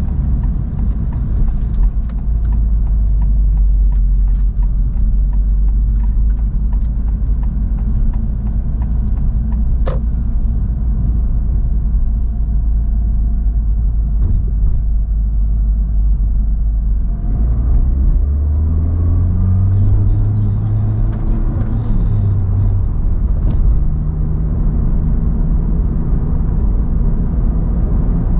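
Honda Civic Type R (FL5) being driven: a steady deep road and tyre rumble with scattered light ticks. From a little past halfway, its turbocharged four-cylinder engine note comes up, its pitch stepping and gliding as it changes speed.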